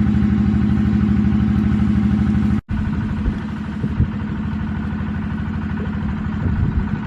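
An engine running steadily with an even, throbbing rhythm. It cuts off abruptly about two and a half seconds in, and a similar engine sound resumes slightly quieter.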